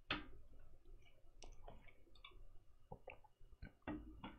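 Faint, scattered clicks of a computer mouse being clicked while browsing, over a faint low hum.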